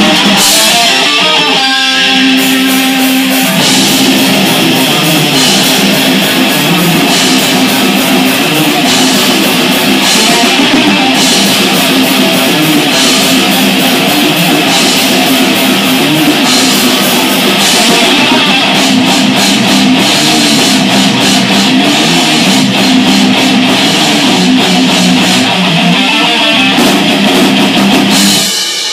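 Heavy metal band playing live in rehearsal: two electric guitars through amplifier stacks and a Pearl drum kit with steady cymbal strokes. The playing stops suddenly near the end.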